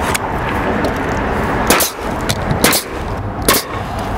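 Pneumatic coil roofing nailer firing several shots about a second apart, each a sharp crack, as nails are driven through step flashing into the roof deck.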